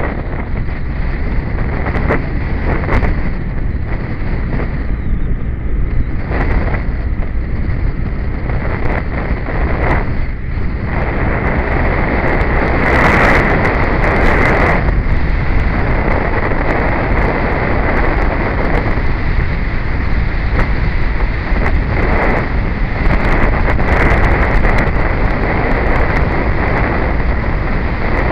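Wind rushing over the microphone of a moving Royal Enfield motorcycle, over the steady running of its single-cylinder engine. The wind swells in gusts, loudest about halfway through.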